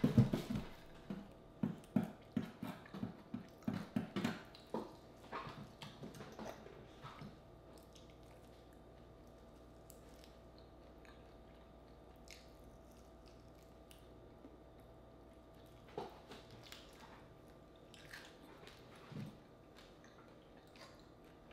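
A person chewing cooked frog legs, about two to three chews a second for the first seven seconds. After that it is mostly quiet, with a few soft mouth clicks.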